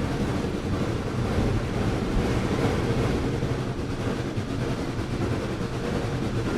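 Excursion train running along the track: a steady rumble of wheels on rail.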